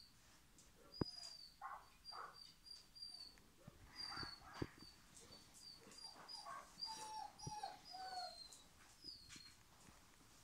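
Faint dog whimpering: a string of short, high-pitched squeaky whines, with a few lower falling whimpers about seven to eight seconds in and a few faint taps.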